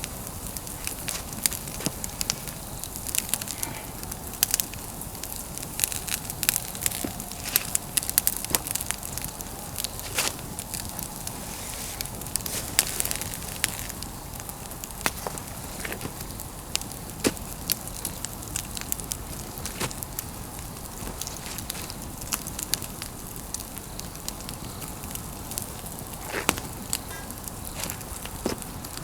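Pine firewood fire crackling, with irregular sharp pops over a steady hiss.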